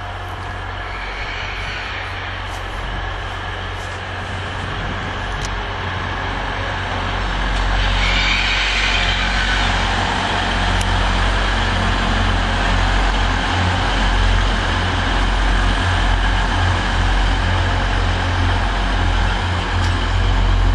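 Express passenger trains passing at speed on the main line: a steady rumble of wheels on rail and running gear that grows louder about seven seconds in as a train draws level, then keeps going.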